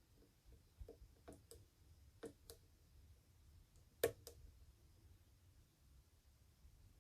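Faint, scattered clicks of lock picks working the sliders of an EVVA 3KS high-security lock, about seven in all, the sharpest about four seconds in.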